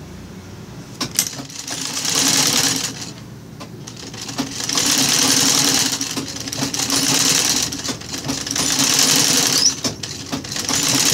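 Old black sewing machine stitching ruffled fabric strips onto a burlap backing in several short runs, starting and stopping with brief pauses between them.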